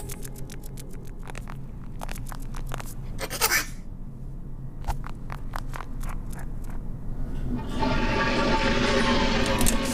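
Quick, light cartoon footstep taps, a rapid patter of short clicks, with a brief swish about three and a half seconds in. About eight seconds in, a louder steady rushing noise sets in.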